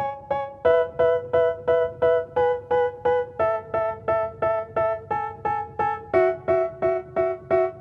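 Background music: an electric piano or keyboard playing short, evenly repeated chords, about three and a half a second, changing chord every couple of seconds.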